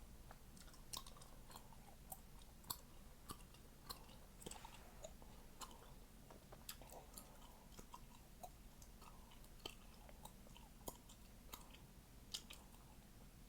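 A person chewing gum, with irregular wet clicks and sharp pops. The loudest pops come a few seconds in and near the end.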